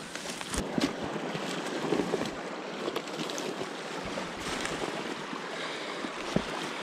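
Boots crunching through snow and dry twigs scraping and snapping as someone pushes through streambank brush, with scattered crackles over a steady rushing hiss of flowing stream water.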